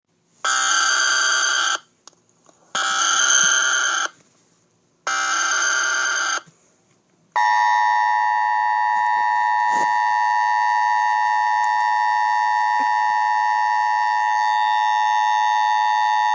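Emergency Alert System tones: three short screeching data bursts of the SAME header, then the two-tone attention signal, a steady tone that starts about seven seconds in and holds unchanged.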